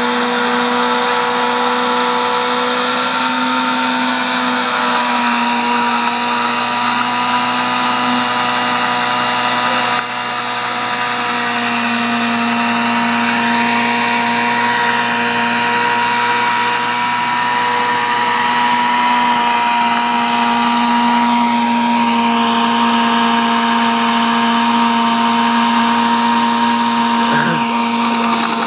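Motorcycle engine held at high, steady revs during a stationary burnout, with the rear tyre spinning against the pavement; the revs fall away right at the end as the throttle is closed.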